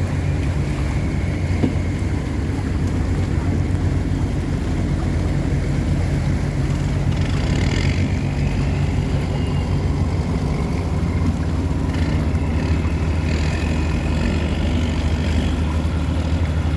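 River tugboat's diesel engine running steadily with a deep, even drone, working under load while towing cargo barges against the current.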